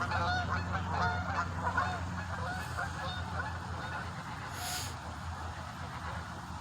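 Geese honking, a quick run of calls in the first couple of seconds that then thin out and fade.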